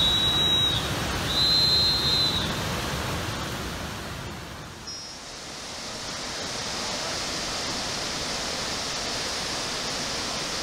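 Whitewater of the Rogue River's rapids at Rainie Falls rushing as a steady noise. Two short high-pitched tones ring out over it in the first two seconds. About halfway through the rush dips, then returns steadier and hissier.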